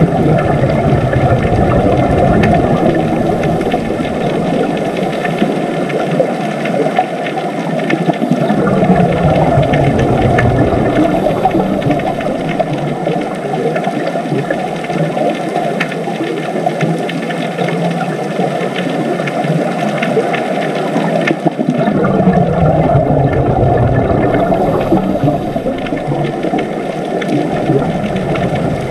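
Steady, dense low underwater-style rumble, with a few slow falling moans like distant whale calls.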